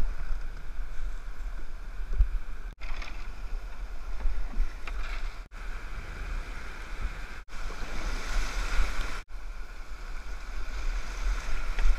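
Whitewater rapid rushing and splashing around a kayak as it runs down the river, with a low rumble of wind on the microphone. The sound cuts out for an instant four times, and swells louder a little after two-thirds through.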